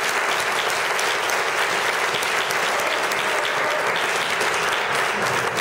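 Audience applauding: many hands clapping steadily at an even level.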